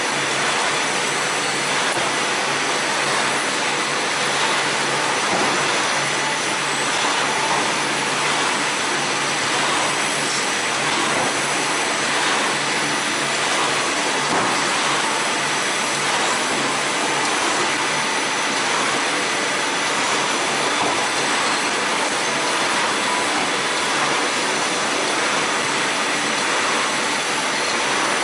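Bottom-seal plastic bag-making machines running in a workshop: a steady, even mechanical noise with a few faint steady tones, no separate strokes standing out.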